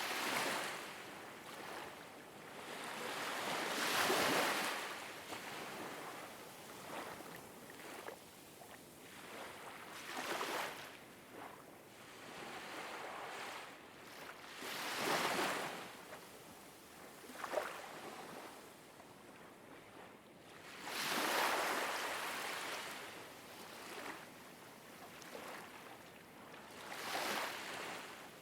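Ocean waves washing in, each swelling and fading about every five to six seconds.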